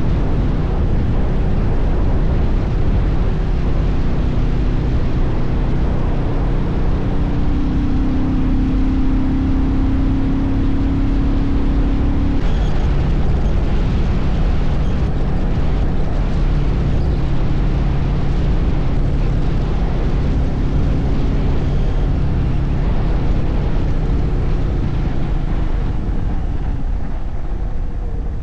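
Royal Enfield Meteor 350's single-cylinder engine running steadily at highway cruising speed, heard through heavy wind rush on the microphone. The engine note drops to a lower pitch a little under halfway through.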